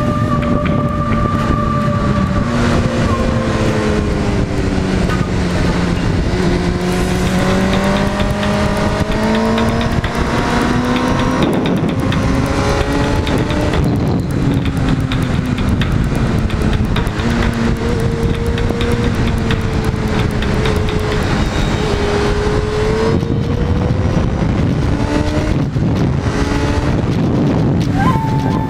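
Honda CBR600 F4's inline-four engine running hard under way, its pitch sliding up and down with the throttle and jumping up sharply near the end, with wind rushing over the microphone.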